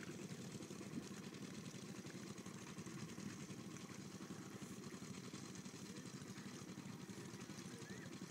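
Low, steady drone of an engine running at a distance.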